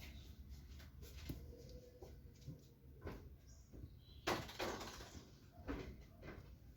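Faint scattered clicks and taps of hands and tools handling a blender motor and its wiring, the sharpest tap about four seconds in.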